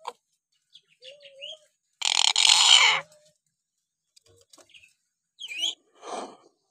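Hill myna calling. A few short whistled notes lead into a loud, harsh screech about two seconds in that lasts about a second, and two shorter calls come near the end.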